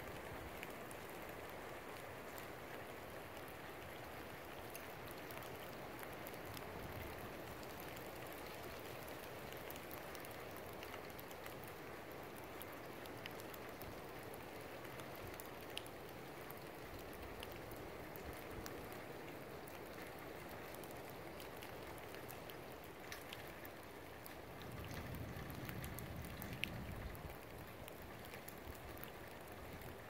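Steady rushing of strong wind and rain, with scattered sharp ticks. A few seconds before the end, a gust rumbles low on the microphone.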